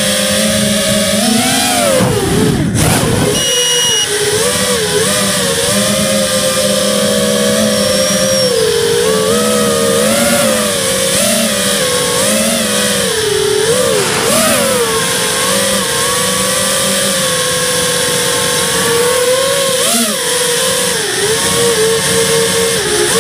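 Radio-controlled car's motor running steadily, its pitch rising and falling as the throttle is worked, heard from a camera mounted on the car. A brief rough rattling jolt about two seconds in.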